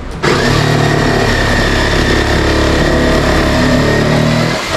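A handheld power tool's electric motor runs steadily under load for about four seconds, then stops, while working into the wooden wall.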